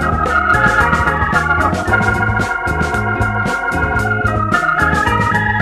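Background music: an organ-like keyboard melody over a bass line, with a steady drum beat.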